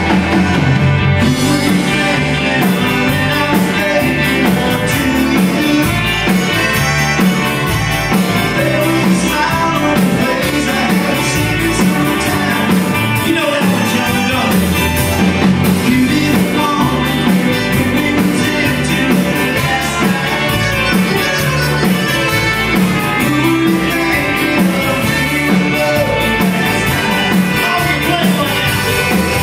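Live Tex-Mex country-rock band playing a song, with trumpet, electric guitar, accordion, keyboard and drums, and some singing.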